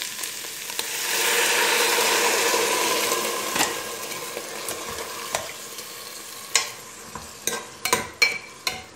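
Water poured into a hot pressure cooker of fried kohlrabi and its greens sets off a loud burst of sizzling about a second in, which dies down over the next few seconds to a steady sizzle. Near the end a metal ladle clicks and scrapes against the pot several times.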